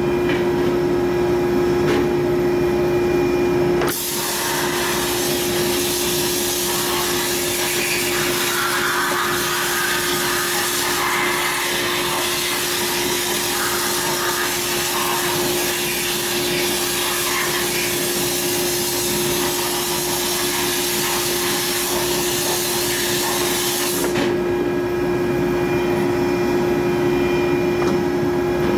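Abrasive blast cabinet: the air-fed blast gun hisses steadily as it blasts an aluminium Harley shovelhead engine case, starting about four seconds in and stopping suddenly about five seconds before the end. A steady hum runs underneath.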